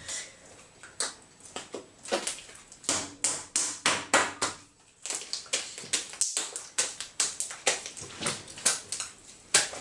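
Slime being poked and swirled by hand, a quick irregular run of sticky clicks and pops, several a second, with a brief lull about halfway through.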